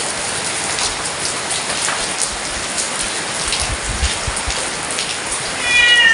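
Heavy rain falling steadily, with scattered louder drops. Near the end a cat gives a short meow that falls in pitch.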